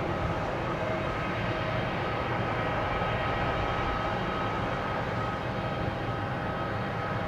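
Jet airliner idling: a constant rumble with a steady, unchanging high whine.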